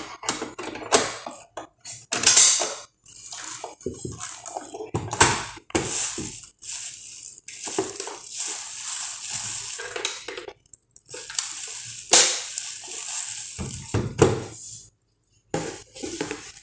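Handling noise from a sandwich maker being unpacked: crinkling of its plastic wrapping, mixed with knocks and clatter of the appliance's hard casing and hinged lid against the counter and box.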